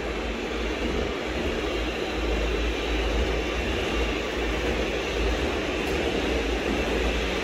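0 gauge model train running along the layout towards the listener, a steady running noise with a low rumble. It grows louder over the first couple of seconds, then holds steady.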